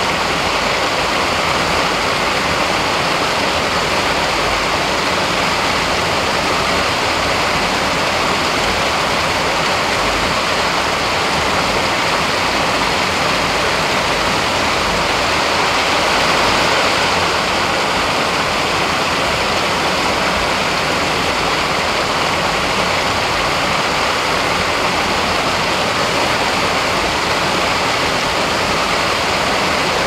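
Steady rushing water, an even, unbroken roar like a stream or waterfall.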